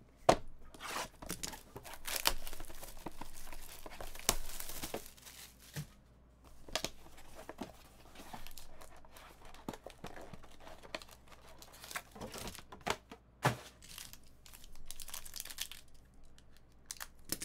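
Cardboard trading-card boxes being handled and opened: packaging rustling, sliding and tearing, with scattered sharp knocks and clicks. Near the end a foil card pack crinkles as it is slit open with a box cutter.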